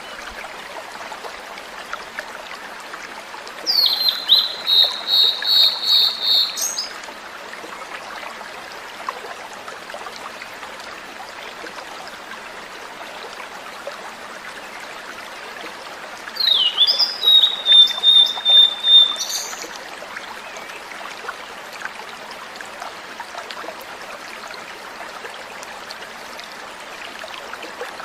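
A tledekan laut (sulingan laut) singing two flute-like phrases, each opening with a few quick sliding notes and then a run of about seven evenly repeated high whistles. Between the phrases, a steady trickle of running water goes on.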